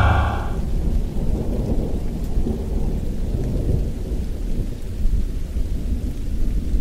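Low, uneven rumbling noise with no engine note.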